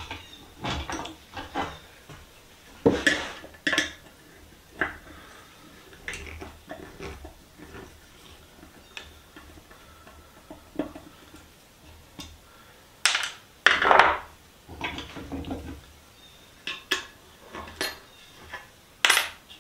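Scattered knocks, clinks and scrapes of a hand screwdriver and an antique wooden Stanley Sweetheart spirit level being handled on a wooden workbench as its screws are backed out. Several louder clatters stand out, the biggest about two-thirds of the way through.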